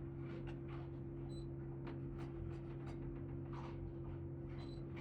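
A steady low machine hum with faint scattered clicks, and two short faint high beeps, one about a second and a half in and one near the end.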